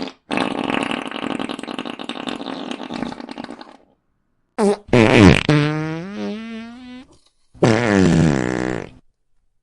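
Fart sound effects in a row: a long, rough, noisy fart lasting about three and a half seconds, then after a pause a short blip and a loud pitched fart whose tone slides down and wavers, and finally a shorter pitched fart falling in pitch.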